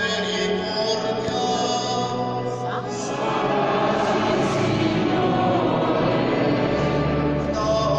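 Church music: a pipe organ holding sustained chords, with many voices joining in singing from about three seconds in, echoing through a large reverberant church. A deeper bass note enters near the end.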